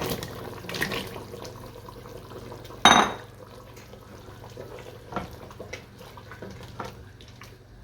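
Potato pieces tipped into a metal cooking pot of mutton curry, with one loud metallic clang about three seconds in that rings on briefly, then a few light knocks of a utensil against the pot.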